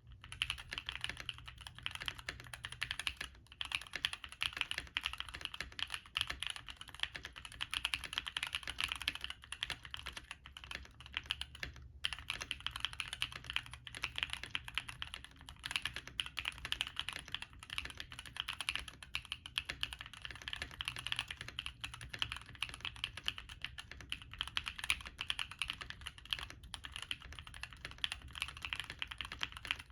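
Steady, fast typing on a stacked acrylic 60% mechanical keyboard with stock Gateron Baby Raccoon linear switches and PBT Cherry-profile keycaps. The keystrokes come in a dense run of clacks, broken by brief pauses about three and twelve seconds in.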